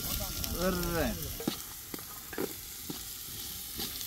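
Onions sizzling as they fry in hot oil in a large cooking pot, stirred so that the ladle scrapes and knocks against the pot now and then. About a second in, a short wavering voice-like call sounds over the frying.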